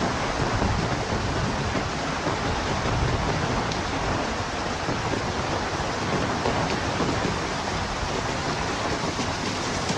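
Heavy rain with wind, a steady even hiss with no breaks.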